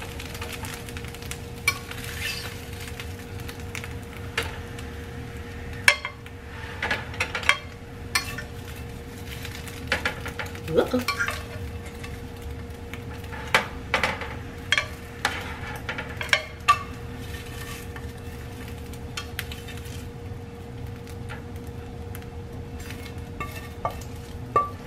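A spatula scraping and tapping in a nonstick frying pan as scrambled eggs are scooped out onto a plate, with scattered clinks and knocks. A steady hum runs underneath.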